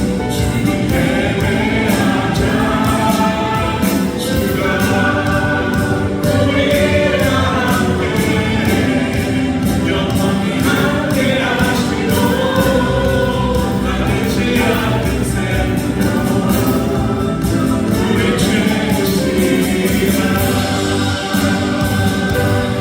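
A choir singing with musical accompaniment, continuous and loud.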